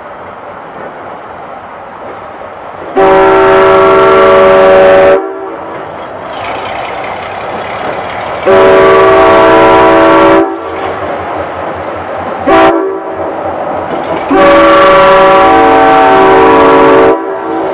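GE 50-ton diesel switcher's air horn sounding the grade-crossing signal: two long blasts, one short and one long, with the locomotive's diesel engine running between the blasts.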